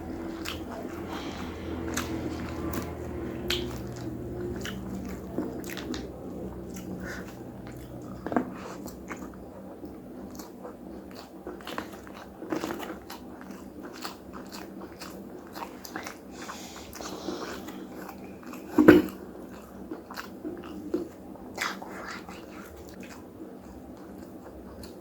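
A person eating nasi padang, biting and chewing with many short, crunchy clicks, and one louder sharp click about 19 seconds in.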